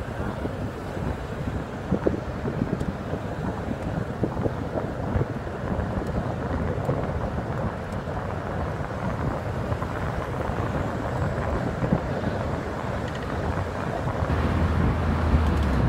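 Wind rushing over a phone microphone held outside a moving car's window, with road rumble underneath; a low steady hum grows near the end.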